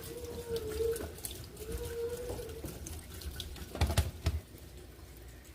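Kitchen tap running as cooked penne is rinsed under cold water in the sink, with a couple of knocks about four seconds in.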